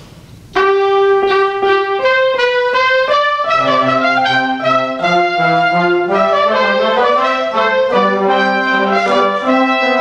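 A small instrumental ensemble playing a slow passage of held notes. A single line starts suddenly about half a second in, and lower parts join one after another over the next few seconds.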